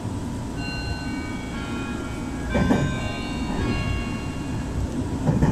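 Meitetsu train's music horn playing a short melody of several held notes, starting about half a second in and ending around four and a half seconds, over the steady rumble of the train running on the rails. Two heavier knocks from the wheels come around the middle and near the end.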